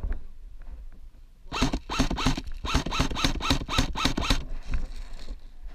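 Rhythmic rustling and rasping of a body and gear moving through dry grass: about four strokes a second for roughly three seconds, starting about a second and a half in, then fainter shuffling.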